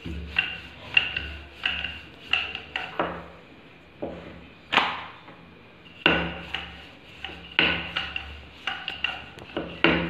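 A wooden rolling pin is pushed back and forth over thin paratha dough on a granite countertop. Each stroke gives a low rumble with sharp clicks and knocks. The strokes pause for a couple of seconds about three seconds in, broken by one loud knock, then start again.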